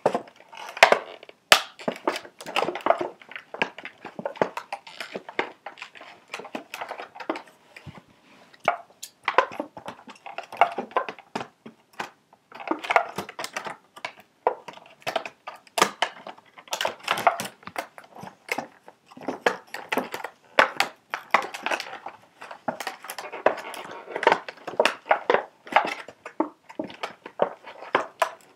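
Paper and cardboard packaging being ripped and crinkled by hand: a dense, irregular run of rustles, tears and small clicks with short pauses.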